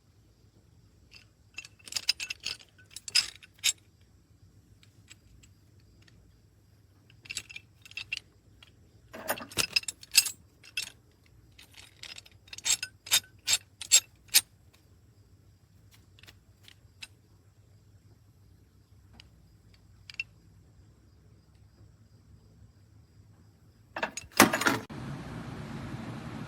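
Metal wrenches clinking and clattering as they are handled, in irregular bursts of sharp clinks. Near the end there is a louder clatter, after which a steady rushing hum sets in.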